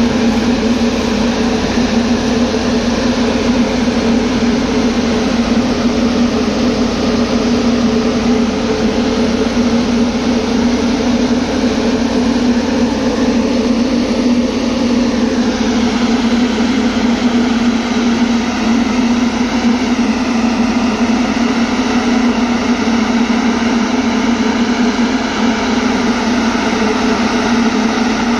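Anti-smog gun (mist cannon) running, its big fan blowing out a water mist: a loud, steady rush of air over an even low hum.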